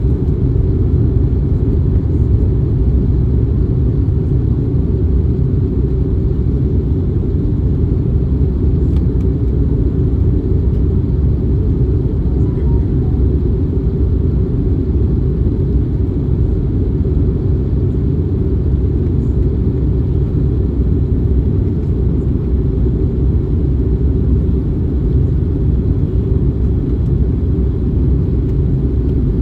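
Airbus A321neo cabin noise: a steady, loud, low rumble of engines and airflow heard from inside the passenger cabin, unchanging throughout, as in cruise.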